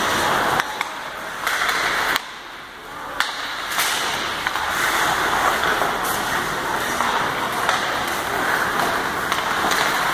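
Ice hockey play: a steady hiss of skates scraping the ice, with sharp clacks of sticks on the puck now and then. The hiss drops away briefly about two seconds in.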